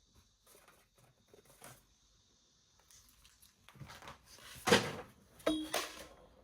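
Toys and packaging being handled: light clicks and rustles, then a sharp knock just under five seconds in and a couple more knocks about half a second to a second later.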